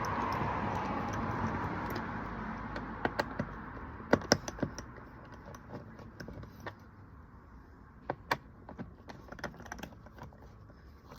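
Scattered small clicks and taps of a Phillips screwdriver undoing the screws of a motorcycle airbox cover, with screws handled between them. A steady rushing noise fades away over the first few seconds.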